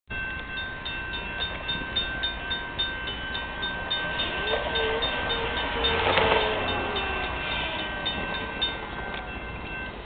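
Railroad grade-crossing warning bell ringing in an even rhythm of about two to three strikes a second; the strikes die out about nine seconds in. From about four and a half seconds in, a locomotive horn sounds one held note for about three seconds, over the low rumble of the approaching diesel locomotive.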